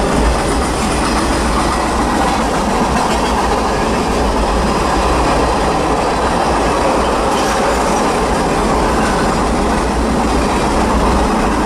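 Norfolk Southern freight train rolling past, a loud, steady noise of wheels on rail.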